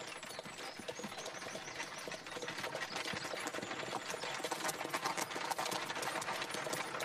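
Hoofbeats of horses with the rattle of a horse-drawn carriage, a dense run of clattering knocks that grows louder from about two and a half seconds in as they approach.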